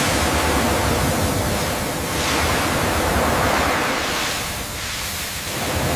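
Pressure washer jet spraying water onto rusted metal: a steady rushing hiss that eases slightly a little before five seconds in.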